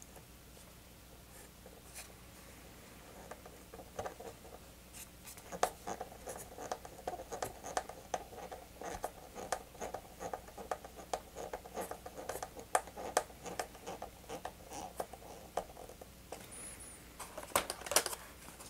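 Small hand screwdriver driving screws into the tail assembly of a foam RC model plane: a quick run of small clicks and scratching from about four seconds in, with a few louder clicks near the end.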